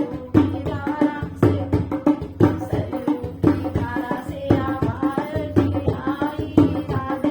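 Hindi devotional bhajan music: a tabla beat under a bending melody line, with a singing voice.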